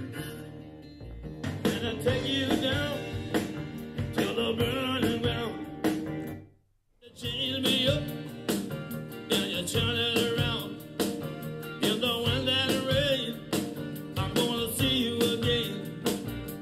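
A song with a singer, played back on portable Bluetooth speakers: first on the Doss SoundBox XL, then, after a brief silence about six and a half seconds in, on the Vifa Helsinki.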